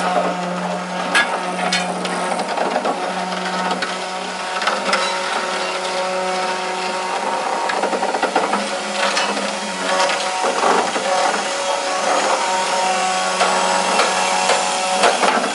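Construction machinery running with a steady low hum, overlaid with irregular clicking and rattling.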